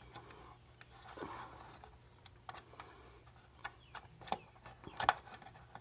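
Faint scattered clicks and taps of small plastic and metal parts as memory modules are unclipped and worked out of their sockets on a circuit board, with a few sharper clicks in the second half.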